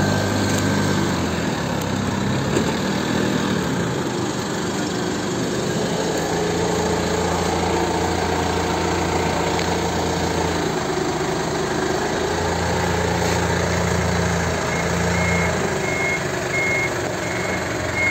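Forklift engine running steadily, its pitch stepping up and down as the driver manoeuvres. Near the end a reversing alarm starts beeping at a steady rate.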